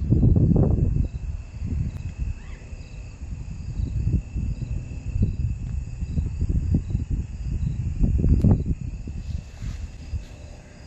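Insects trilling steadily, a constant high note with a faster pulsing chirp above it. Irregular loud low rumbles come and go, strongest at the start and again about eight seconds in.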